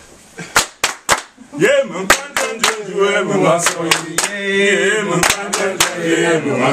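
Steady rhythmic hand clapping by a small group, about two to three sharp claps a second, with voices singing along from about a second and a half in.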